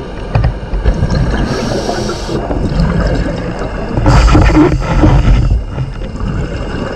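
Underwater scuba breathing: regulator hiss and gurgling exhaled bubbles, with a louder rush of bubbles about four seconds in.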